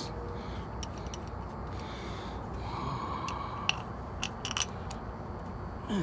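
Sparse light metallic clicks and a short scrape as the bolted end cap is fitted onto a refrigeration rack's filter-drier shell, over a steady low hum.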